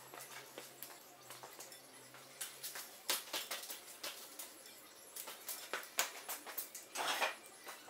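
Used engine oil dripping and trickling from the push mower's oil fill tube into a plastic drain pan: an irregular patter of small ticks as the crankcase drains. There is a brief scuffing noise near the end.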